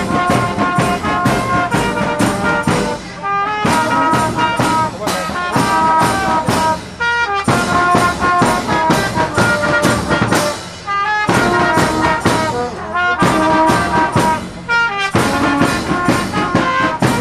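Brass band music: held brass notes over a steady beat.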